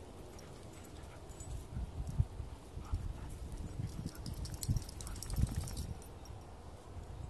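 Two dogs play-wrestling, their paws scuffling and thudding irregularly on dry dirt, with light crackling mixed in, heaviest in the middle of the stretch.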